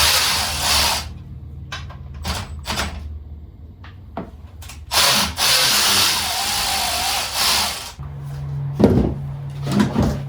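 A power drill running in bursts, the longest about two and a half seconds near the middle, as the motorcycle's brake caliper bolts are backed out. Short knocks and clicks of tools come in between.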